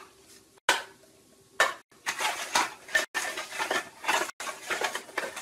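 Small cups knocked down twice onto a hardwood floor with sharp taps, then slid and shuffled around in a quick run of clattering and scraping.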